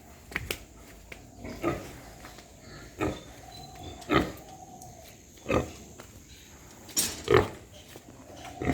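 Pigs grunting in a pen: short, sharp calls coming about every second or so, with a faint, longer held note in the middle.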